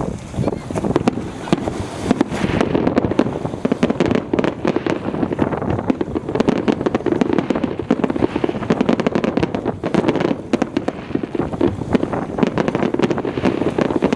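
Fireworks crackling: a dense, continuous stream of rapid small pops and bangs, with strong wind buffeting the microphone.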